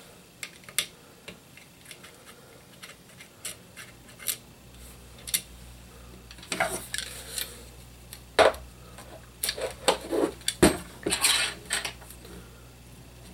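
Clicks, taps and scrapes of the hard plastic and metal parts of a DBoys M4 airsoft electric gun being handled and taken apart at the receivers, sparse at first, then a busier run of louder clacks and scrapes in the second half.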